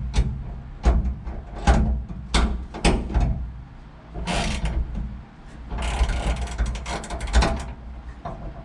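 Hand ratchet wrench clicking while tightening the CO2 bottle's mounting bolts: sharp clicks about every two-thirds of a second for the first three seconds, then a quick run of rapid clicks a few seconds later.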